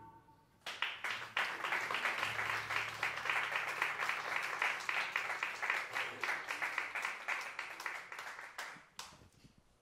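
Audience applauding at the end of a piece. The clapping starts about a second in, holds steady, then thins out and dies away about a second before the end.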